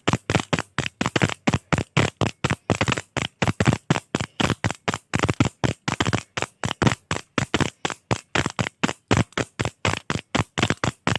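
Retractable pen clicked over and over in a rapid, even run, about four to five sharp clicks a second.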